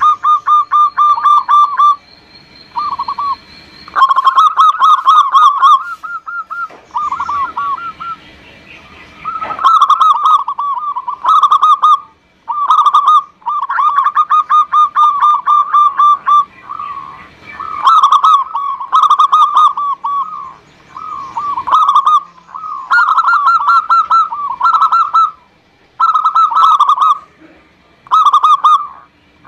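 Zebra dove (perkutut) song: loud, rapid stuttering coos in phrases of one to two seconds, repeated again and again with short pauses between them.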